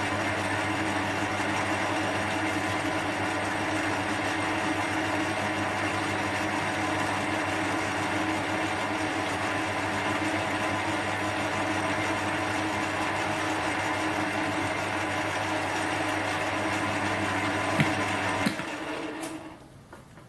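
Small metal lathe running steadily with a motor hum, then two clicks about eighteen seconds in as it is switched off, and it winds down.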